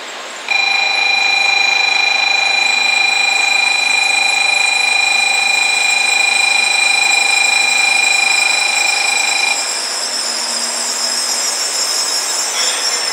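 N700-series Shinkansen trainset rolling past slowly as it accelerates away. A steady high tone cuts in about half a second in, holds unchanged for about nine seconds and cuts off suddenly, leaving the train's rolling noise.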